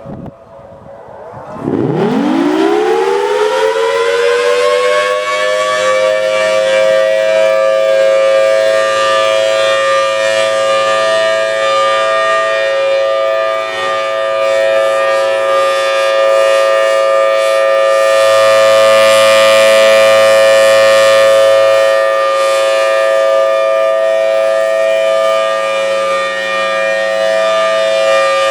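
1983 Federal Signal Thunderbolt outdoor warning siren winding up from low pitch about a second in, rising fast, then holding a steady two-note chord: the steady Alert signal. It grows a little louder about two-thirds of the way through.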